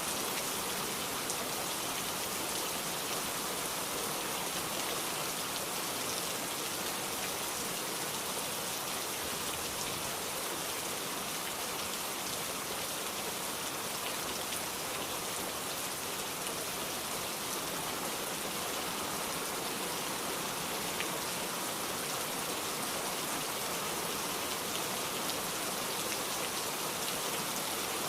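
Heavy rain, a steady downpour, falling evenly and without a break.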